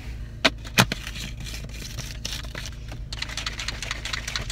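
Two sharp clicks about half a second apart, then a plastic Myprotein shaker bottle being shaken to mix pre-workout, a dense rattling that grows stronger about three seconds in.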